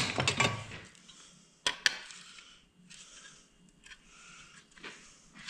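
Small metal headlight-assembly parts clinking and clicking as they are handled. There is a sharp click a little under two seconds in, a second one just after it, and a softer one near the end.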